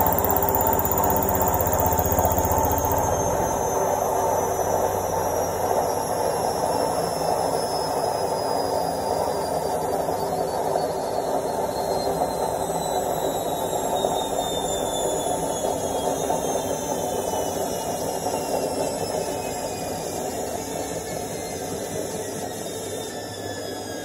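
Indesit front-loading washing machine's drum spinning down at the end of its final spin: a high motor whine falls slowly in pitch over a steady whooshing hum. The deep rumble drops away a few seconds in, and the sound gradually grows quieter.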